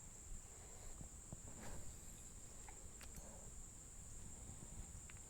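Crickets trilling in a steady high-pitched chorus, with a few faint clicks and rustles.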